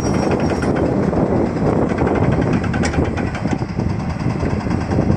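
Diesel engine of a Komatsu PC200 hydraulic crawler excavator running steadily at close range.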